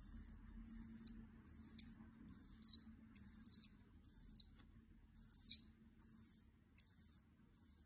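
Copic marker nib scratching across paper in short, quick colouring strokes, a little over one a second, a few of them louder than the rest.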